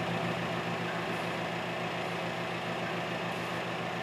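Steady low hum with an even hiss, unchanging throughout: the background room tone of an apartment, such as an appliance or air-conditioning hum.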